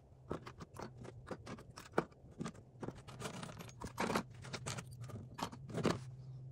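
Rusty nails being picked off a workbench and dropped one by one into plastic bottles of white vinegar, making a run of light clicks and clatters against the plastic and each other. A steady low hum runs underneath.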